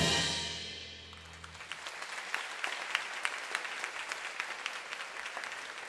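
A big band's closing chord, led by a trombone section, rings and fades out over the first second and a half. Then audience applause takes over and runs steadily.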